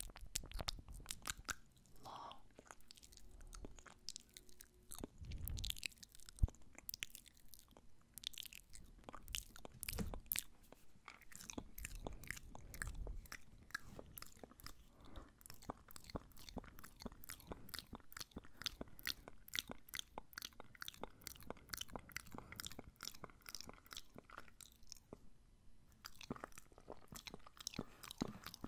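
Close-miked wet mouth sounds of ASMR "ear eating": a steady run of quick lip and tongue smacks and clicks, several a second, with no words.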